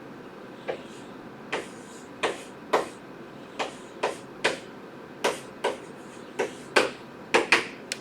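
A pen or marker writing and drawing: about fourteen short, irregularly spaced strokes, roughly two a second.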